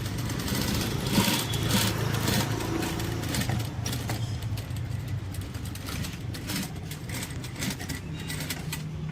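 Heavy-duty jute bag sewing machine running: a steady low motor hum with quick, irregular clicks over it.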